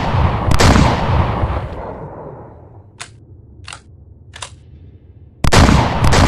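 Remington SPR210 double-barrel shotgun firing, two shots about half a second apart, each with a long echoing tail. Three short clicks follow in the pause, then another pair of shots near the end.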